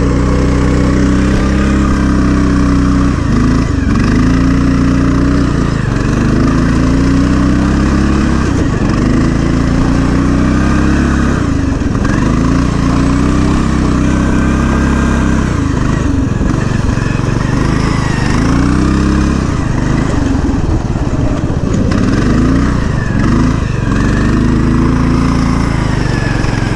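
Engine of an engine-swapped Poulan riding lawn mower running loud under load, its speed dipping and climbing back again every two to three seconds.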